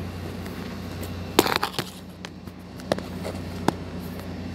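Wheel loader diesel engine idling with a steady low hum. A few sharp clicks and knocks over it, a cluster about a second and a half in and two more near the end.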